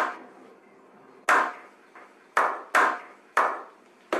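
A series of sharp percussive hits, five in all, irregularly spaced, each ringing out briefly.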